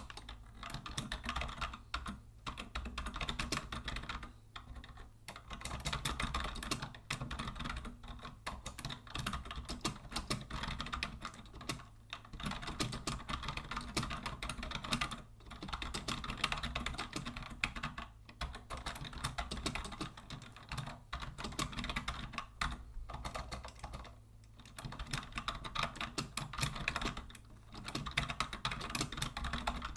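Fast typing on a vintage Logitech Deluxe 104 wired keyboard: a rapid, steady run of key clicks broken by brief pauses every few seconds.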